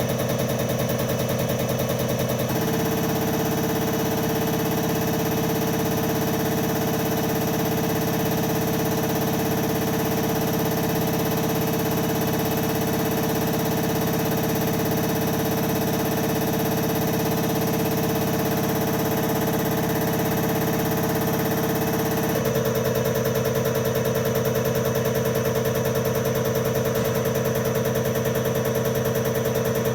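Common rail injector pump test bench running steadily, its drive and pump humming with rapid fine ticking. The pitch drops slightly about two and a half seconds in and rises back near the end, as the bench changes speed.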